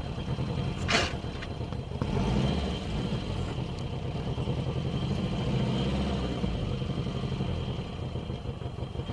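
A vehicle engine running with a steady low rumble, with one short sharp click about a second in.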